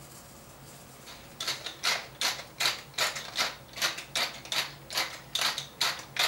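Wooden pepper mill grinding black pepper onto steaks. A rhythmic run of short grinding strokes, about two and a half a second, starts about a second and a half in.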